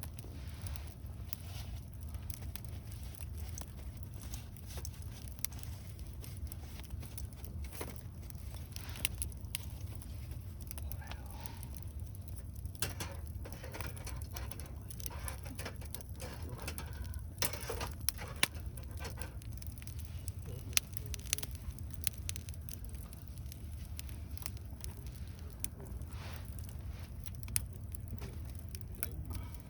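Wood campfire crackling, with irregular sharp snaps and pops over a steady low rumble; the pops grow more frequent about halfway through.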